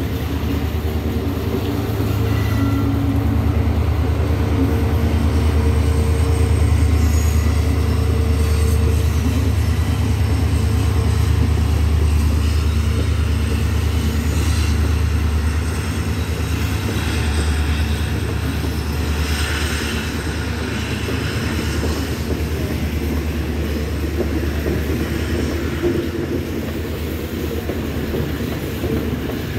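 WDP4D diesel-electric locomotive passing with its two-stroke EMD V16 engine running, a deep steady drone that is loudest in the first half. After that, the passenger coaches go on rolling by over the rails.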